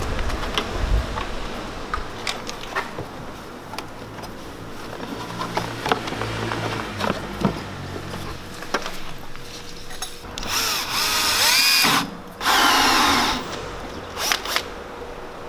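Cordless drill running in two short bursts about ten and twelve seconds in, boring a hole for a pipe fitting. Before them come scattered handling knocks and clicks.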